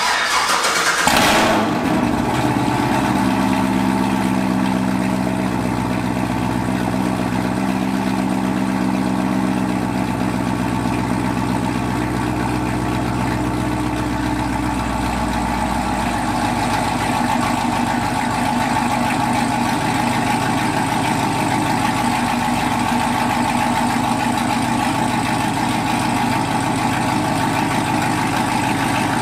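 6th-gen Chevrolet Camaro engine starting: a brief crank and flare about a second in, then a fast idle that drops to a lower, steady idle about halfway through.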